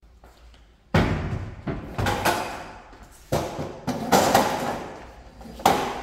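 A steel filing cabinet being worked, its doors or drawers opened and shut. There are about five sharp metal bangs with rattling tails, beginning about a second in.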